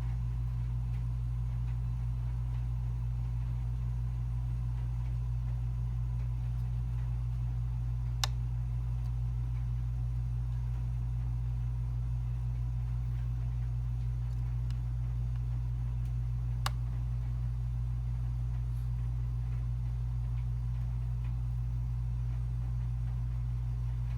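Hard-drive clone kit running with a steady low hum, and two sharp single clicks about eight seconds apart. The kit is malfunctioning.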